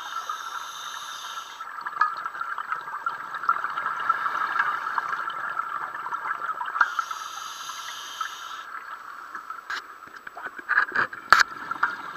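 Underwater breathing of a scuba diver on a regulator: two hissing inhalations, each about a second and a half long, at the start and about seven seconds in, with bubbling exhalations between them. A few sharp clicks come near the end.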